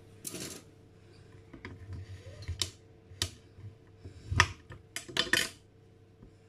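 Kitchen knife chopping a bar of dark chocolate on a glass cutting board: irregular sharp knocks and clicks as the blade cuts through and strikes the glass, with the chocolate cracking under it.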